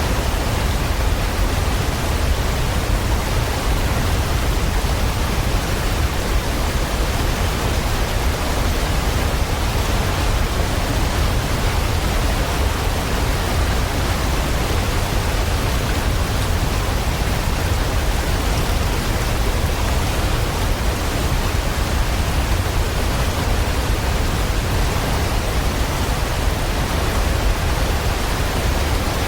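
Steady rainfall: a constant, even hiss with a deep rumble underneath, unchanging throughout.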